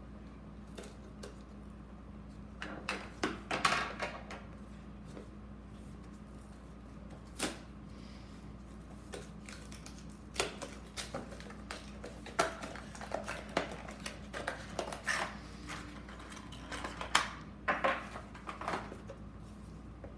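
A small cardboard box and its plastic insert being handled and opened by hand: scattered clicks, taps and rustles in several short clusters, over a steady low hum.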